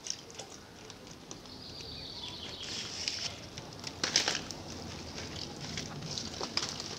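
Rustling and scuffing as a wet, paper-skinned model coracle is handled and carried, with a louder rustle about four seconds in.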